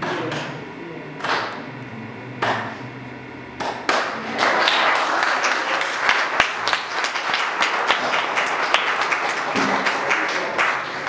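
Slow, evenly spaced beats over low held music, then a congregation breaks into applause about four seconds in. The applause lasts several seconds and fades just before the end.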